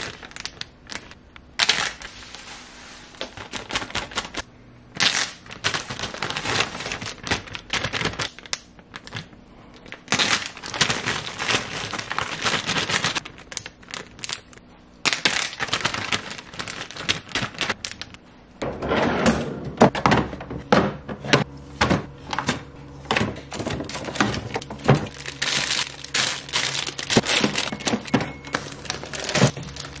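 Plastic zip-top freezer bags being handled and sealed: crinkling plastic and quick runs of clicks as the zipper seal is pressed shut, with frozen fruit pieces dropping into a bag. From a little past halfway the knocks and rustling get denser and heavier.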